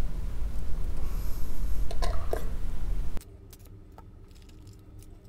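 Steady low hum at the repair bench, with a few light clicks of metal tweezers working the iPhone logic board about two seconds in. The hum cuts off abruptly just after three seconds, leaving only a faint room hum.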